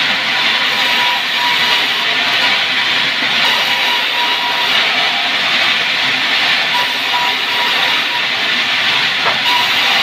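Sawmill saw running as it cuts sengon timber: a loud, steady rushing noise with a faint whine that comes and goes.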